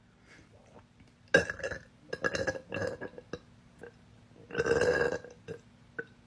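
A woman belching several times: a short burp about a second in, a run of shorter belches after it, and one longer belch about four and a half seconds in.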